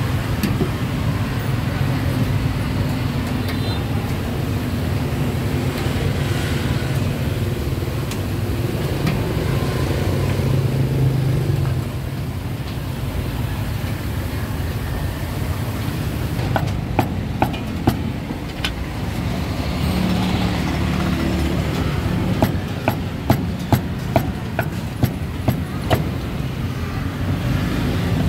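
Street traffic running steadily, with voices in the background. From a little past halfway, a string of sharp clacks or knocks joins in, at times about two a second.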